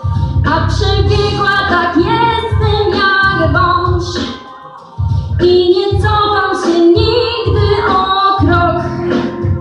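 A girl singing a pop song live into a handheld microphone over music with a steady beat, heard through PA speakers in a hall. The sound dips briefly about four seconds in, then the voice and beat come back.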